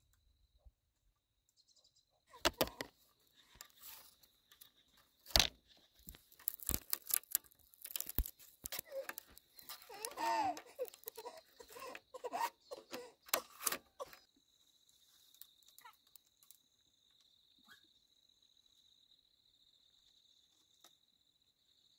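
A run of sharp knocks and clatter, loudest about two and a half and five and a half seconds in, with a brief wavering voice-like sound near the middle. When the knocking stops, crickets trill steadily.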